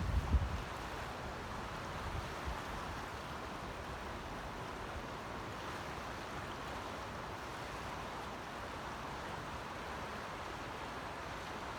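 The River Teith in flood: a steady rush of fast-flowing floodwater. A few low thumps in the first half second.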